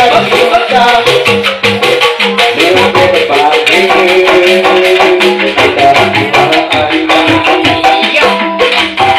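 Live Sundanese music: bamboo angklung rattles shaken in a fast, even rhythm over a steady low beat, with a pitched melody line shifting above it, played loud through a stage PA.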